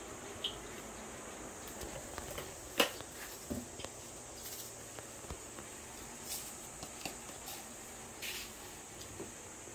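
Faint kitchen background: a steady high hiss with scattered light clicks and taps, the loudest about three seconds in.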